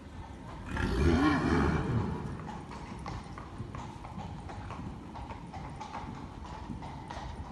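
A horse whinnies loudly for about a second, starting just under a second in, over the steady hoofbeats of a horse trotting.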